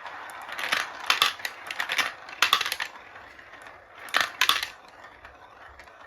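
Marbles rolling down a marble-run track, with a soft continuous rolling noise broken by irregular sharp clicks and clacks as they knock against the track and each other.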